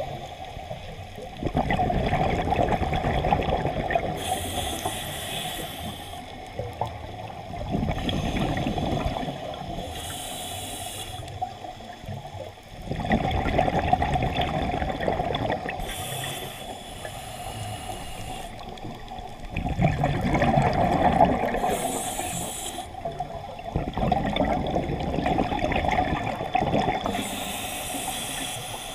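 Scuba diver breathing through a demand regulator underwater, about every six seconds. Each breath is a couple of seconds of loud exhaled bubbles, followed by a shorter high hiss of the inhale.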